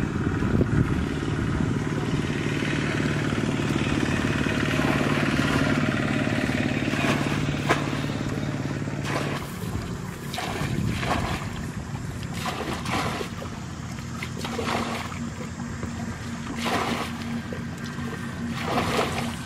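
A small engine hums steadily, then drops and changes pitch about halfway through. After that, muddy water splashes and pours again and again as buckets are emptied in shallow ditch water.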